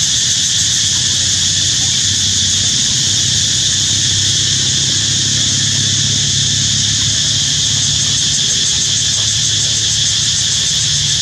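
Loud, steady, high-pitched drone of an insect chorus, unbroken throughout.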